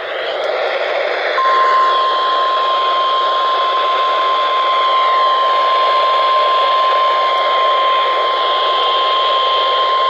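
NOAA Weather Radio 1050 Hz alert tone played through a RadioShack weather radio's speaker as part of the required weekly test. It is one steady single-pitched tone that starts about a second and a half in and holds for roughly nine seconds, over a constant hiss of radio static.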